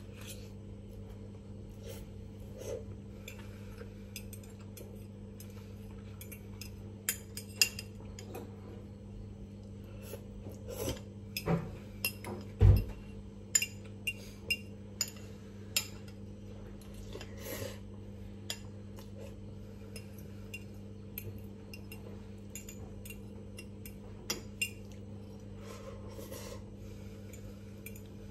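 Metal cutlery clinking and scraping against a ceramic bowl while noodles are eaten: scattered clicks, busiest around the middle, with one louder knock there, over a steady low hum.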